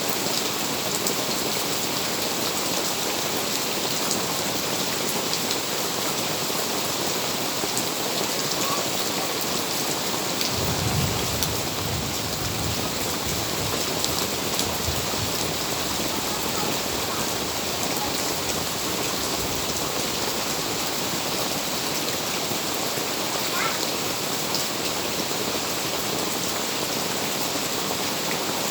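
Steady rain falling and pattering on surfaces. A low rumble comes in about ten seconds in and fades over several seconds.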